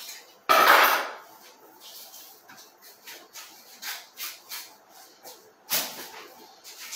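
Boning knife cutting and scraping through a pork shoulder on a wooden butcher's block, in short, faint, irregular strokes. A loud scrape of the meat being handled comes about half a second in, and another louder stroke near the end.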